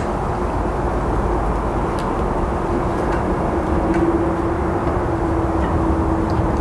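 A 1x30 belt grinder, driven by a sewing-machine servo motor, running steadily: a low hum with a faint steady whine, and a few light clicks as the machine is handled.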